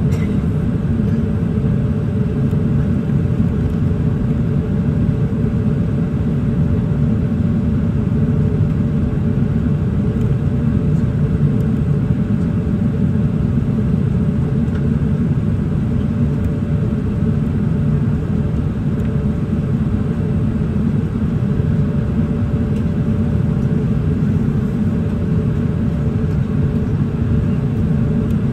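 Boeing 787-8 Dreamliner cabin noise in flight: a steady low rumble with a faint steady hum above it.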